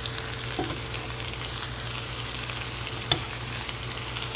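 Potatoes and sliced onions sizzling steadily in bacon grease in a stovetop pan while they are stirred, with two sharp clicks of a utensil against the pan.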